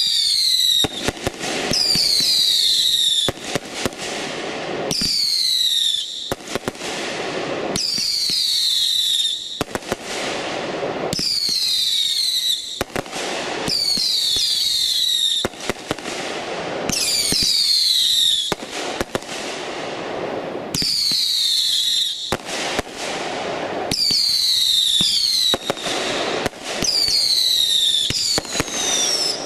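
A 500-gram "A Taste of Heat" fireworks cake firing shot after shot of screaming whistles. Each whistle falls in pitch over about a second and comes every two to three seconds, with sharp pops and crackle between them.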